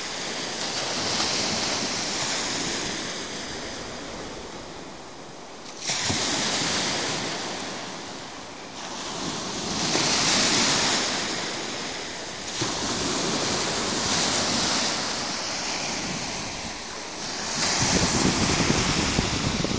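Small sea waves breaking and washing up over a sandy beach at the water's edge, the hiss of surf swelling and fading every few seconds. Wind rumbles on the microphone near the end.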